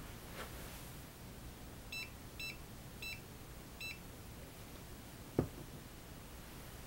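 Handheld RF radiation meter beeping four times, short high beeps at uneven spacing, as its buttons are pressed. A single knock from handling the meter follows about a second and a half later and is the loudest sound.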